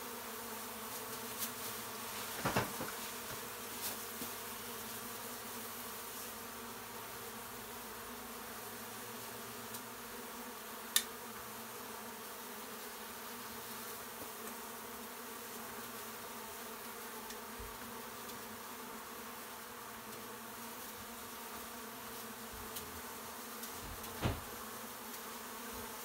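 Honeybees of an exposed colony buzzing steadily in an even hum. A few knocks break it: one about two seconds in, a sharp click around the middle, and another near the end.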